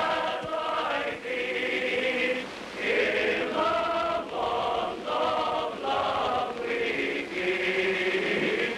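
Men's choir singing a slow passage of held notes, each lasting about a second, with short breaks between phrases.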